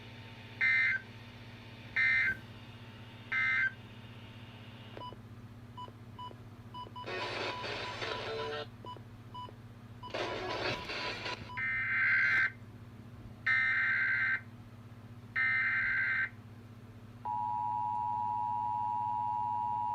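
Emergency Alert System SAME data signal: three short bursts of screeching digital data tones that end the message, then some scattered beeps and static. Three longer data bursts open the next alert, and about three-quarters through the steady two-tone EAS attention signal starts and holds.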